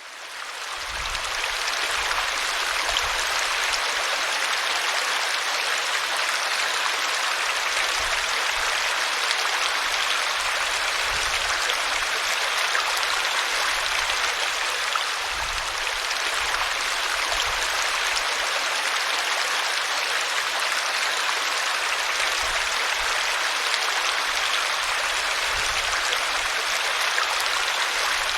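River water flowing: a steady, even rushing that fades in over the first couple of seconds, with occasional faint low rumbles beneath it.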